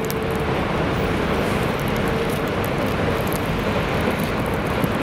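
Street traffic on wet pavement: cars passing in a steady wash of engine and tyre noise, with a faint steady hum in the first few seconds.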